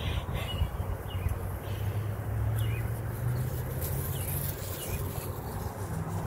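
Lure-coursing machine's motor running as it drags the line and lure across the turf, a low hum that rises a little in pitch and is loudest mid-way. Birds chirp in the background.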